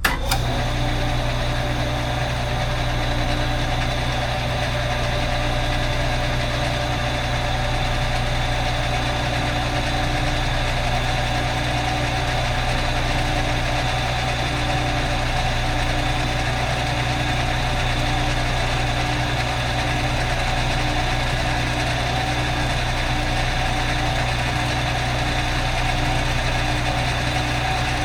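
Metal lathe running steadily while boring out the inside of a motorcycle cylinder, a constant mechanical hum.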